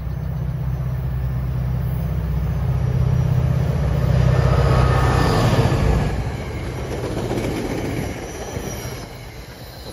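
NJ Transit locomotive-hauled passenger train passing at speed. A low steady drone from the locomotive builds and peaks about four to six seconds in as it goes by, with some squealing from the wheels. Then the coaches' wheels rumble over the rails, easing off near the end.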